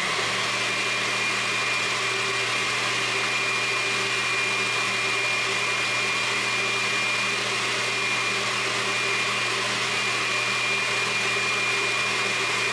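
Countertop blender running at a steady speed, puréeing boiled sea moss in its cooking water into a smooth milky liquid: an even churning rush with a steady high motor whine.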